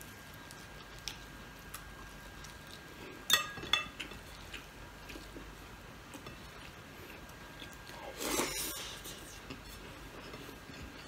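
A person chewing and biting crispy bagnet (deep-fried pork belly) while eating with the hands. Two sharp clicks come about three and a half seconds in, and a louder crunching burst of about a second comes near eight seconds.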